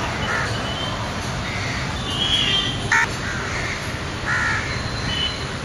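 Crows cawing in several short, separate calls. A single sharp knock sounds about three seconds in.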